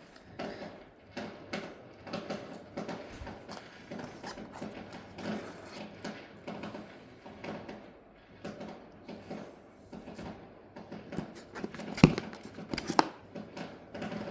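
Handling of an iPad's box and packaging during unboxing: a run of rustles, scrapes and small clicks, with two sharp knocks about a second apart near the end.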